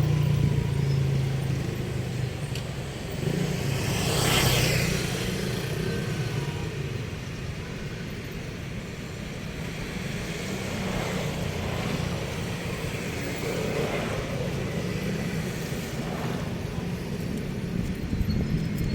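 Road traffic: a steady low rumble with vehicles passing, the loudest going by about four seconds in.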